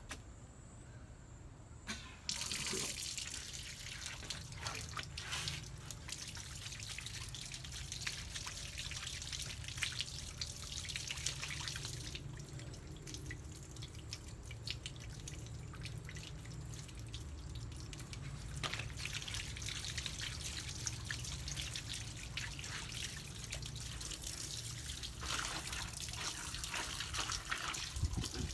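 Water from an outdoor wall tap and garden hose starts running about two seconds in, a steady splashing and trickling with scattered drips, easing off in the middle and growing louder again near the end.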